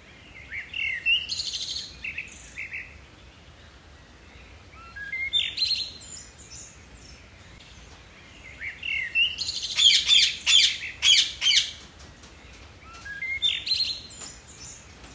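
A bird singing the same short song phrase four times, a few seconds apart. Each phrase opens with a few rising notes and ends in a quick run of notes; the third phrase is the longest and loudest.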